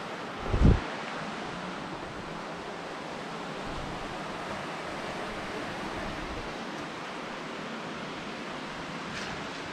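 Flowing water rushing steadily, with one short low thump about half a second in.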